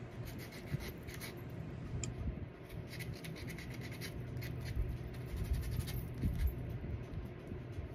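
A small hand sanding tool scratching back and forth in quick short strokes over a small painted bat cutout, rubbing through the black paint to distress it.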